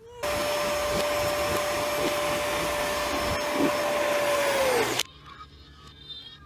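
A small electric motor running with a steady whine over a rushing of air, played backwards; the whine sags in pitch just before it cuts off suddenly about five seconds in.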